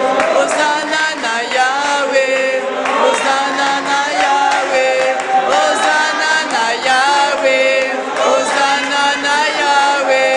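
Several voices singing a worship song together, holding long notes that bend and waver in pitch.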